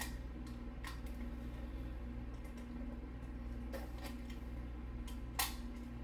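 Utility knife slicing the seal on a cardboard CPU box: a few short scraping cuts, the strongest near the end, over a steady low hum.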